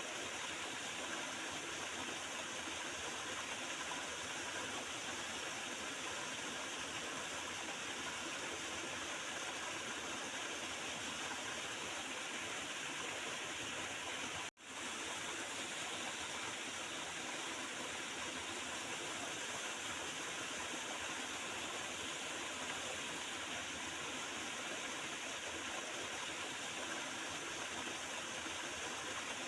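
Small river's water flowing and gurgling, a steady rush. It cuts out abruptly for a split second about halfway through.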